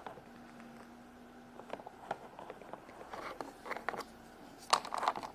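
Small hard plastic toy pieces clicking and tapping as they are handled and set down on a plastic playset, sparse at first and growing busier, with the sharpest clicks near the end.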